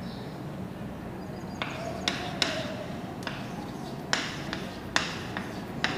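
Chalk tapping and scratching on a blackboard as numbers are written, a series of about seven short, sharp taps.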